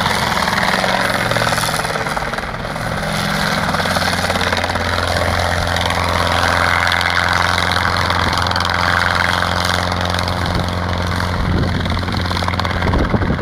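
Light helicopter hovering low and turning in place, its engine and rotor making a steady drone.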